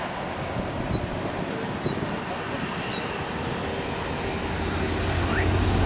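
Wind rushing across the microphone. A low engine hum builds steadily over the last second or so.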